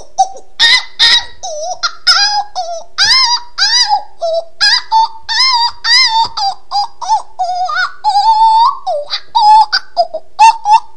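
A child singing in a high, squeaky, warbling voice: a long string of short, wavering notes that bend up and down.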